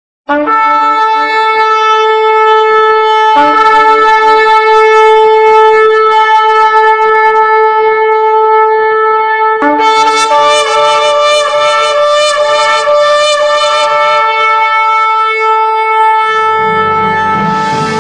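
Intro music of long, sustained horn notes, the same pitch held for seconds at a time, with new notes starting about three and a half seconds in and again near ten seconds. Lower instruments come in near the end.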